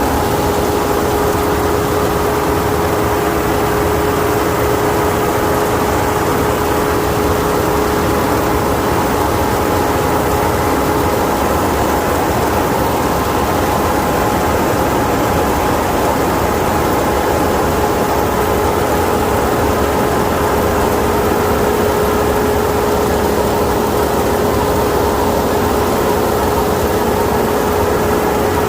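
Kukje KC5130 rice combine harvester running steadily: constant engine and machinery noise with a steady whine that drops away for several seconds near the middle and then comes back.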